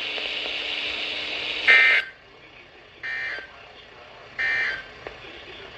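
Weather radio broadcast closing an Emergency Alert System warning with three short SAME end-of-message data bursts: brief buzzing two-tone digital squawks about 1.4 s apart, the first and loudest nearly two seconds in, over steady radio hiss.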